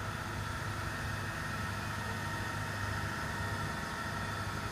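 Engine of heavy machinery on a construction site running steadily at a constant speed: an even low hum with a steady higher whine over it.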